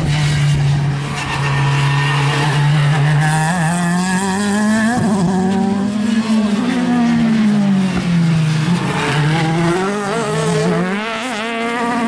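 Racing car engines at high revs, the pitch climbing and dropping again and again through gear changes and lifts as the cars go past.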